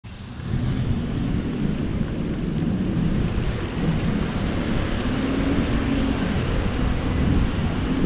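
Outdoor street ambience: a steady low rumble of background noise that fades in over the first half second, with no clear single event.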